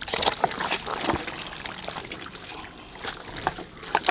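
Hands kneading chunks of mutton in a yogurt and spice paste in a large aluminium pot: wet squelching with quick, irregular smacks.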